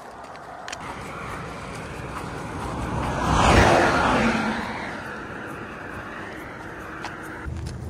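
A large truck passing close by on the highway, its tyre and engine noise swelling to a peak about three and a half seconds in and then fading away. Faint scattered clicks run underneath.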